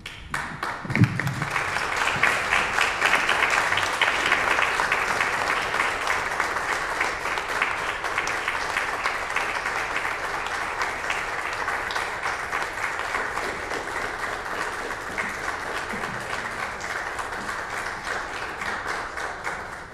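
Audience applauding, a dense patter of many hands clapping that swells in the first few seconds and then slowly tapers off, dying away near the end.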